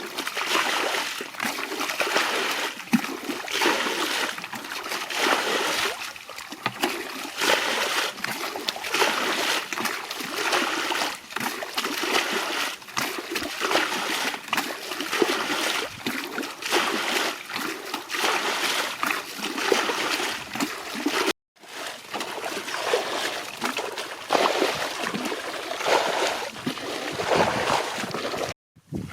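Shallow water splashing and sloshing continuously and irregularly as hands churn through a flooded rice field while catching fish. The sound cuts out briefly twice, once about two-thirds of the way through and again near the end.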